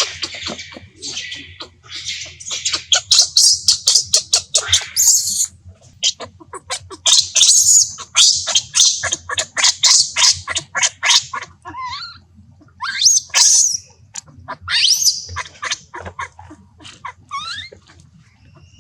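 Baby monkey screaming in rapid runs of shrill squeals, then a few separate rising squeals in the last few seconds: an infant crying to nurse from its mother.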